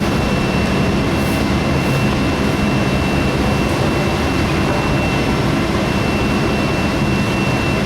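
200 kW induction melting furnace running: a steady, loud rumble with a constant high-pitched whine over it.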